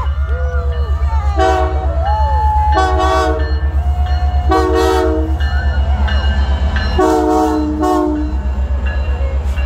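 Locomotive air horn on the Canadian Pacific Holiday Train sounding four blasts, each lasting under a second and made of several tones at once. The last blast is the longest and sags in pitch as it cuts off. A steady, rapidly pulsing low rumble from the passing train runs underneath.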